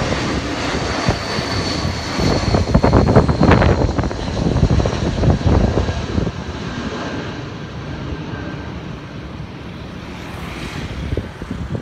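Airbus A320-232 jet airliner on final approach with gear down, passing low overhead. Its IAE V2500 turbofans make a loud rushing jet noise with a high whine that slides down in pitch, then fade over the last few seconds as it moves away.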